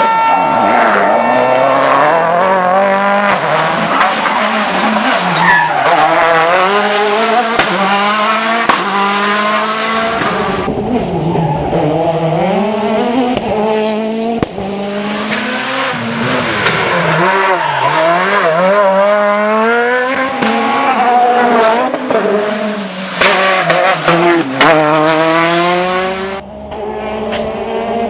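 Rally car engines revving hard, climbing and dropping in pitch through rapid gear changes and lifts. The sound switches abruptly a few times from one car to the next.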